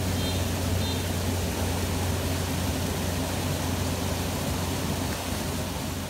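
Water pouring steadily over a small concrete weir into a churning pool: an even rushing hiss with a low rumble underneath.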